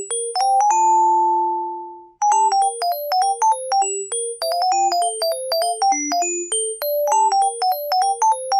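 LG SU550 mobile phone ringtone: a quick, bright electronic melody of short notes that ends a phrase on a long held note, breaks off for a moment about two seconds in, then starts the tune over.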